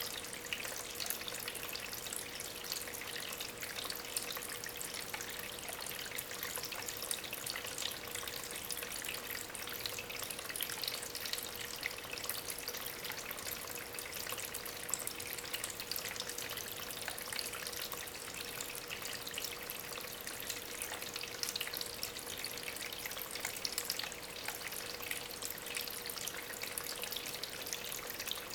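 Small homemade stone waterfall, fed by an aquarium pump, with water trickling and splashing steadily over the rocks. It is a continuous fine patter of small splashes.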